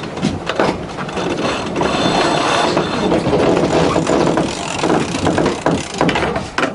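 Wind and water noise aboard a racing sailing yacht, with irregular clicks and knocks from the deck gear.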